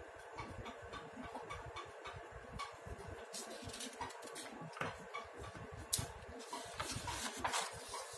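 Sheets of paper on a clipboard being handled and flipped over, with soft rustles and light ticks and taps; the loudest rustles come about six and seven seconds in.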